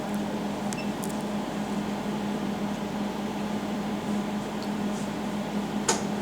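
Water cooling unit of a jewelry laser welding machine running with a steady hum, with a few light clicks about a second in and a sharper click near the end.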